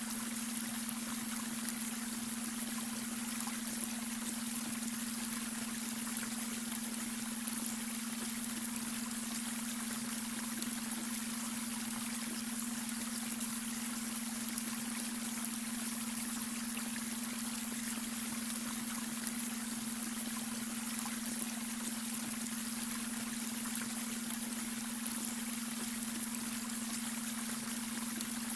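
A babbling brook's water runs steadily over stones, with a constant low hum of a beta brainwave tone laid beneath it.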